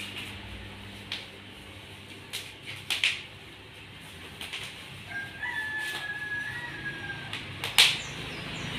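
Scattered clicks, knocks and rustles as the protective wrapping is pulled off new bicycles, the sharpest about three seconds in and near the end. About five seconds in, a rooster crows once in the distance, a held call of about two seconds.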